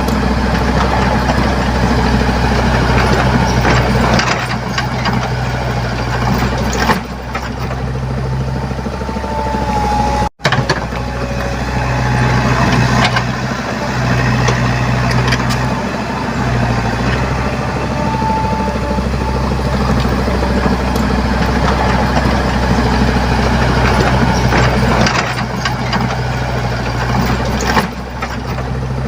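Komatsu PC75UU mini excavator's diesel engine running steadily, with brief high squeaks now and then. The sound drops out for an instant about ten seconds in.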